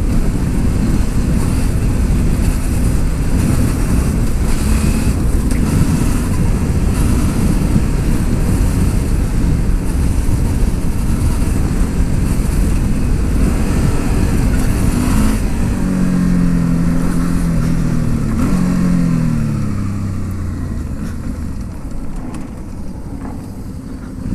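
A motor vehicle driving on a dirt road, its engine and road noise steady. About two-thirds of the way through, the engine note falls in pitch as it slows, and the sound then grows quieter.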